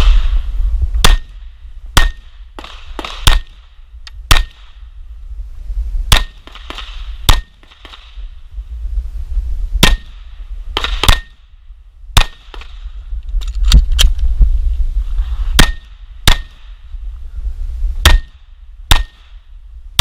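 Glock 19 9mm pistol firing a stage string of about eighteen shots, irregularly spaced in quick pairs and short runs with pauses between them.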